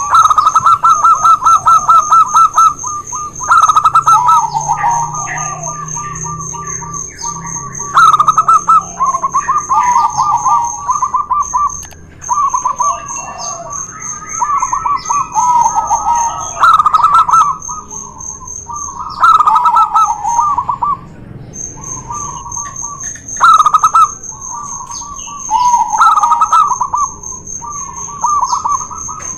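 Zebra doves (perkutut) singing: repeated bursts of rapid, stuttering cooing phrases, two birds at slightly different pitches answering and overlapping each other.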